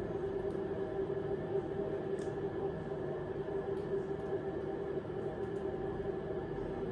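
Steady mechanical hum holding several fixed pitches, with a few faint soft ticks.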